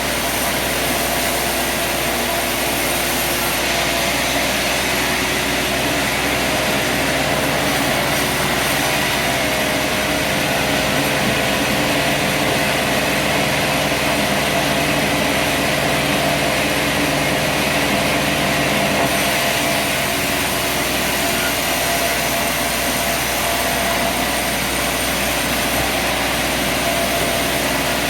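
Sawmill running steadily with a constant machine noise, and a lower tone added from about seven seconds in until about twenty seconds in.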